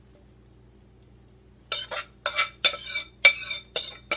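A spoon scraping and clinking against a glass bowl in a quick run of short strokes starting about a second and a half in, scraping out sautéed vegetables.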